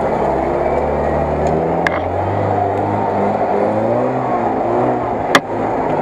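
UAZ-469 off-road vehicle's engine running at low revs as it crawls through mud on big tyres, its note rising and falling with the throttle. A single sharp crack about five seconds in.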